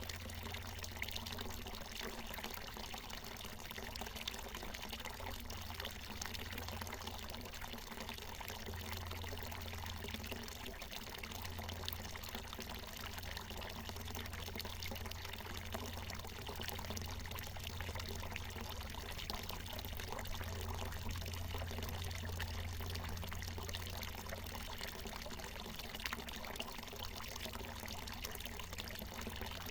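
Water from a natural mountain spring pouring and splashing steadily in an unbroken stream.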